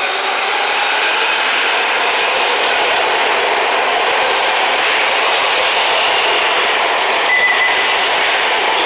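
MARTA Breda-built rapid-transit train pulling out past the platform, with a steady rumble of wheels and motors on the rails. A brief high squeal comes about seven seconds in.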